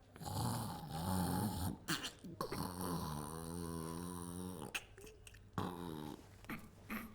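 Stomach growling sound: low gurgling rumbles, then a long wavering growl through the middle, fading out near the end.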